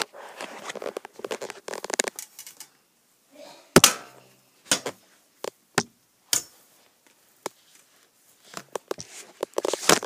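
Handling noise from a handheld phone being moved about: irregular rustling and scraping for the first couple of seconds, then a string of sharp knocks and clicks, the loudest about four seconds in. Another cluster of rustles comes near the end. No steady fan hum is heard beneath them.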